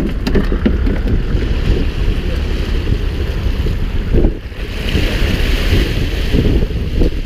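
Wind buffeting the microphone on a boat at sea: a loud, irregular low rumble, with a short lull about four seconds in followed by a higher hiss of wind or water.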